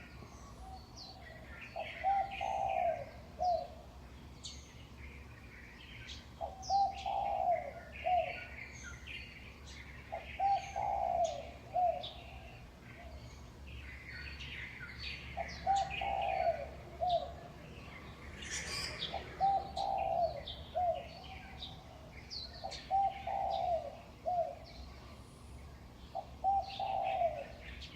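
Dawn birdsong: a dove coos a short phrase of four or five notes about every four seconds, while small birds chirp and twitter throughout.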